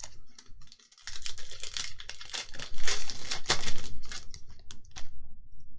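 Foil booster pack wrapper being torn open and crinkled by hand: a dense run of crackling and rustling, with a few sharper tearing strokes in the middle.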